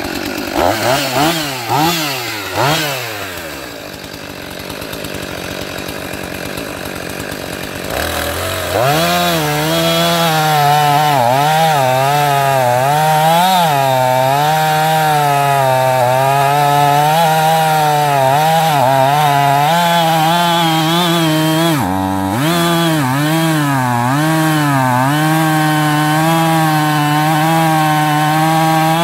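Husqvarna 450 II two-stroke chainsaw revved in a few quick blips, then idling for several seconds. From about eight seconds in it runs at full throttle cutting through a log, its pitch wavering with the load. There is a brief drop in revs about three-quarters of the way through.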